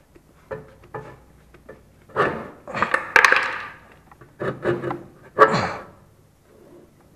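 A new front shock absorber being handled and worked into place on an LML Vespa NV scooter's front suspension, with knocks and scraping as its top plate meets the metal mounting. A few light clicks come first, then several louder clattering clusters in the middle.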